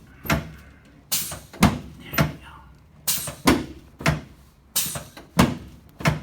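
A string of about ten sharp knocks, roughly one every half second to second, from a chiropractic treatment table as the patient's back is pressed down on it face down.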